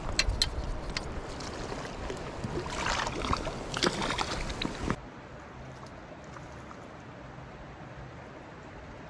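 River water running and splashing close by, uneven with sharp little splashes. About halfway through, a cut gives way to a quieter, steady rush of the stream.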